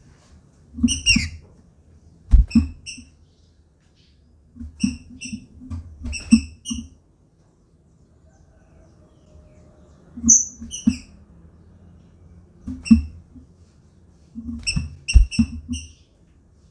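Female green-winged saltator (trinca-ferro) calling: short, sharp chirps in clusters of two to five, a cluster every couple of seconds with pauses between. A few dull thumps come in among the calls.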